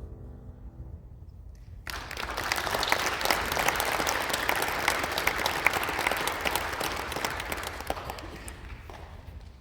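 The last chord of a violin-and-piano piece dies away, then an audience applauds, starting about two seconds in and tapering off near the end.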